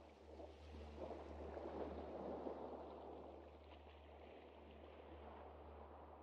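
Faint rushing water of a stream or river, a steady hiss that swells about two seconds in and grows softer in the second half.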